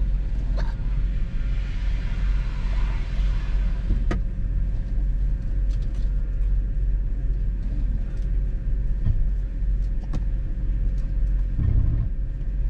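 Low, steady rumble of a Land Rover heard from inside the cabin, with a few sharp knocks and rattles and a heavier thud near the end.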